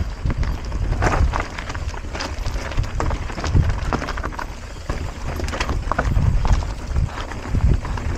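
Mountain bike riding over a rough, rocky trail: irregular knocks and rattles of the tyres and bike over stones, over a steady low rumble.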